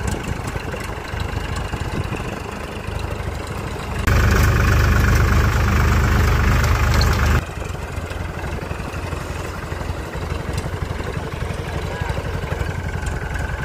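Tractor engine running steadily. About four seconds in, a louder, harsher noise lasting some three seconds starts and stops abruptly over it.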